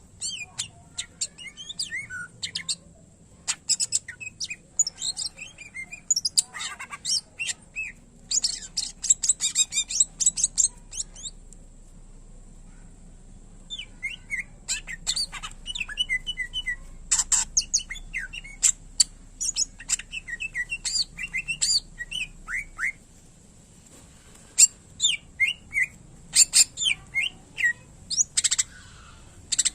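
Green leafbird (cucak ijo) singing in full voice: a fast, varied string of chirps, trills and whistled notes with mimicked phrases of other birds' songs, broken by brief pauses twice.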